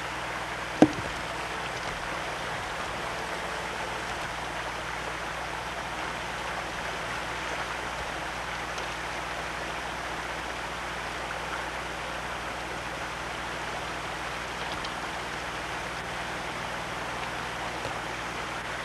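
Steady rushing of flowing river water, with one sharp click about a second in.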